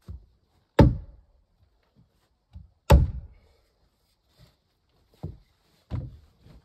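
Heavy thuds of struck blows: two loud ones about two seconds apart, then lighter knocks near the end.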